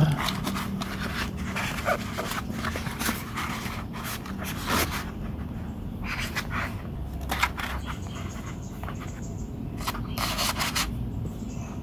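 Tools being slid into a nylon tool belt pouch: scattered rubs, scrapes and light knocks of a plastic utility knife and screwdrivers against the nylon fabric, with a longer scrape about ten seconds in.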